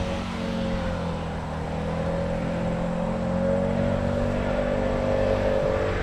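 Lawn mower engine running steadily at a constant speed, an even hum with a faint whine above it.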